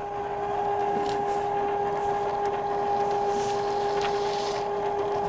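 Electric ice cream maker's motor running with a steady hum while chopped nuts are poured in through the lid, with light rattling as they slide in.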